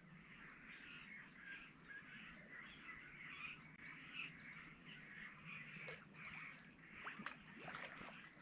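Faint outdoor ambience: a steady wash of distant bird chirping, with a few sharp clicks over the last couple of seconds.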